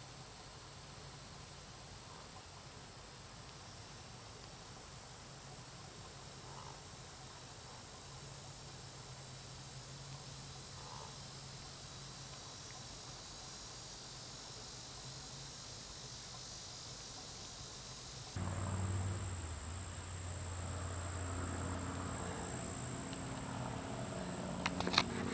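Steady high-pitched chirring of insects in summer vegetation. About three-quarters of the way through a low, pitched hum comes in suddenly and holds, and a few sharp clicks sound near the end.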